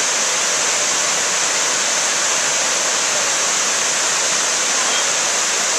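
Steady rush of fast-flowing river water below a dam: a constant, even hiss with no breaks.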